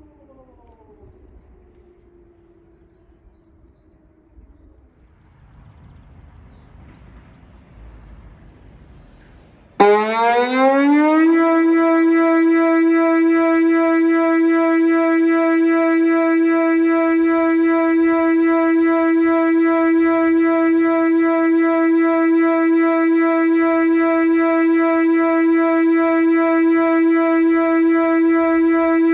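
Whelen WPS 2809 electronic warning siren. A falling tone fades out at the start, then about ten seconds in a loud tone sweeps quickly upward and settles into one steady, unchanging pitch: the all-clear / audible test tone.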